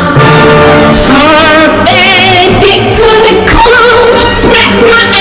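Loud music with a sung vocal; the held sung notes waver with a wide vibrato.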